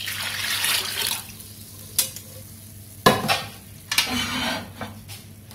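Liquid pouring into a stainless steel pan, the pour stopping about a second in, then a few knocks and clanks of the metal pan being handled on the gas hob, the loudest about three seconds in.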